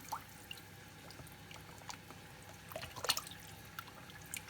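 Water in a bowl being handled as fish is dipped into a salted soak: a few soft splashes and drips, the loudest cluster about three seconds in.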